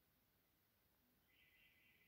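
Near silence: faint room tone, with a faint high-pitched sound starting a little over a second in and still going at the end.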